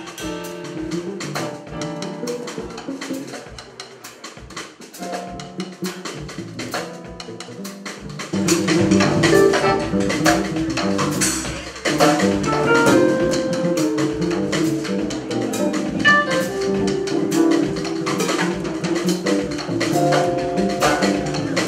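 Jazz piano trio playing live: drum kit, upright bass and piano. The playing is softer at first and grows louder about eight seconds in.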